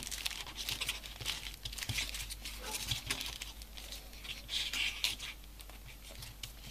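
Folded paper triangle modules of a 3D origami piece rustling and crackling as hands turn and press the assembled body, a soft, irregular string of small clicks.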